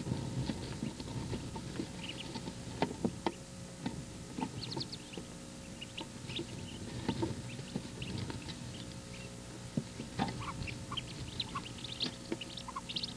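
Wood duck ducklings peeping inside the nest box: many short, high-pitched peeps, scattered and overlapping, over rustling and soft knocks as the brood moves about on the brooding hen.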